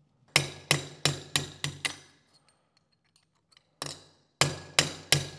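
Hammer striking a steel punch to drive out the governor pins and bushings from a GM G80 locking differential case: about six sharp metallic blows in quick succession, a pause of about two seconds, then another run of quick blows.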